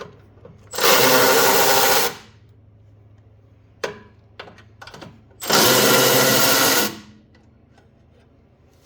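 A power drill or driver run twice in bursts of just over a second, with small handling clicks between, backing out the bolts that hold the recoil starter housing on the snowblower engine.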